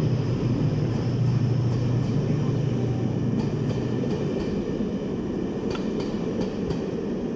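Class 68 diesel-electric locomotive's engine running, a steady low hum that drops away about four seconds in. A few short clicks follow near the end.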